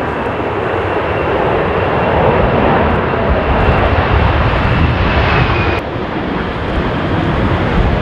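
Airbus A330 airliner's jet engines passing low overhead with the landing gear down: a loud, dense rush of engine noise with a steady high whine. About six seconds in, the whine and the brighter part of the noise cut off suddenly, leaving a duller, lower engine sound.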